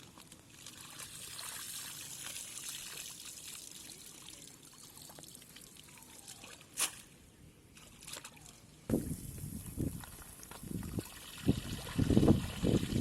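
Shallow muddy water trickling and pouring. About nine seconds in this gives way to a run of low, uneven splashes and sloshes, as of hands working through the mud and water.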